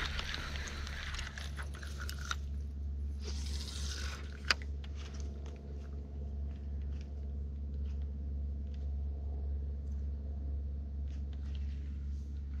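Faint rustling and scattered light clicks of a baitcasting rod and reel being handled as a topwater plug is worked, with one sharp click about four and a half seconds in, over a steady low hum.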